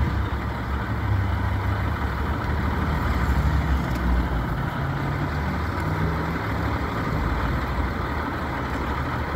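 A large vehicle's engine idling steadily, a low, even rumble.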